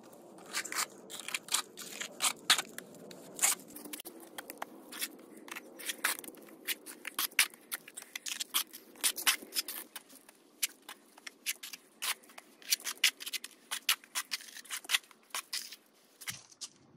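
Plastering trowel and float scraping and working render basecoat on a wall: an irregular run of sharp scrapes and clicks.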